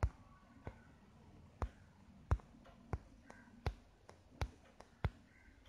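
Sharp single clicks, about eight of them, spaced roughly a second or less apart, from clicking through the shape options of a phone logo-maker app.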